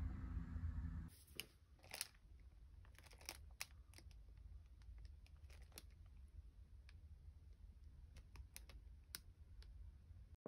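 Plastic bread bag being handled: scattered soft crinkles and crackles. A low hum in the background stops abruptly about a second in.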